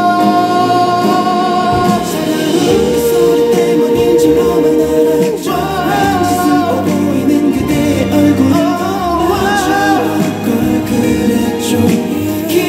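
A male solo vocalist singing a pop ballad live over instrumental accompaniment: a long held note that ends about two seconds in, a second long, lower held note, then wavering runs.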